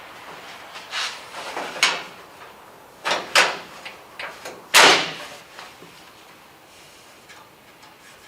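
Sheet-steel trunk floor pan being shifted and pushed into place: a series of clanks and scrapes of metal on metal, the loudest a little before five seconds in.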